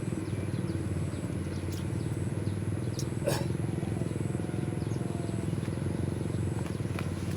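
Small motorcycle engine running steadily at low revs.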